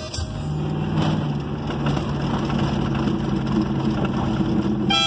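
Steady road and engine noise inside a moving car's cabin. Music starts up near the end.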